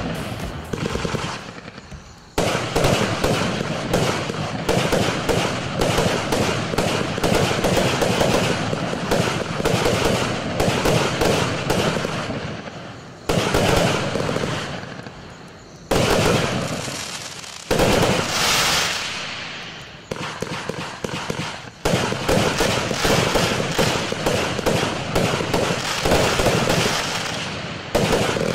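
'Say What' 100-shot compound fireworks cake firing very fast salvos: long runs of rapid reports in quick succession, like a machine gun. The firing comes in several volleys, each restarting loudly after a short dip.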